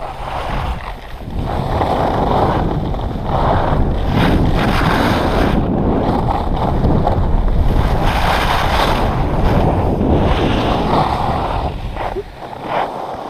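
Wind buffeting a handheld action camera's microphone while skiing downhill, mixed with the hiss and scrape of skis on snow that swells every second or two with the turns. It grows loud about a second and a half in and eases near the end as the skier slows.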